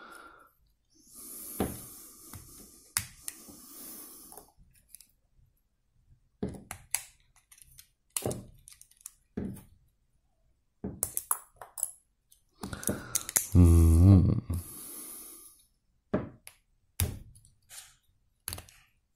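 Plastic Forange building bricks being prised apart and handled, with a series of sharp clicks and snaps as plates come off and bricks knock together, and some plastic rubbing early on. About thirteen seconds in there is a louder, low hum-like voice sound lasting about a second.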